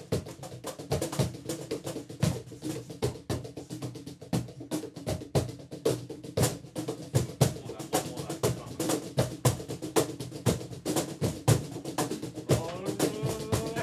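Drums and percussion played together in a fast, busy groove, with many quick overlapping strokes and some pitched drum tones.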